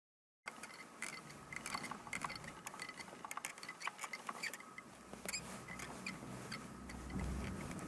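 Irregular clicking and ticking, an abnormal noise from the driver's seat area of a Suzuki Hustler, starting about half a second in, with a low rumble that grows over the last few seconds.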